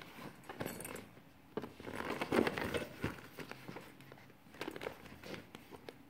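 Handling noise as a wallet is slid into a leather clutch: rustling and light clicks and knocks of leather and metal hardware, in several short spells.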